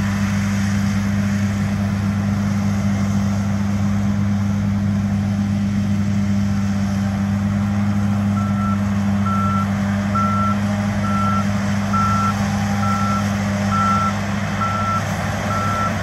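John Deere S790 combine harvester running with a steady deep drone. About halfway through, a reversing alarm starts beeping about once a second.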